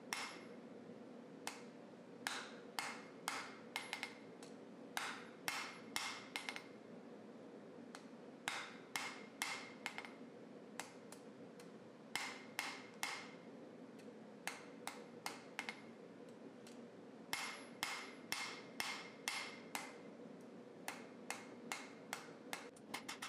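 Hand hammer striking a red-hot steel bar on an anvil, in runs of blows about two a second with short pauses between, forging the bar out. A faint steady hum runs underneath, and near the end comes a quick flurry of light taps.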